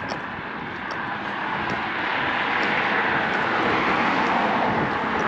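Road traffic on the neighbouring highway bridge: a steady rush of tyre and engine noise that swells about two seconds in as a vehicle passes, then holds.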